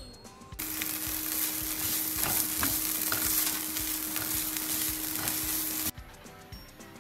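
Food sizzling in a hot frying pan, with a few clicks and a steady hum underneath. It starts suddenly about half a second in and cuts off suddenly near the end.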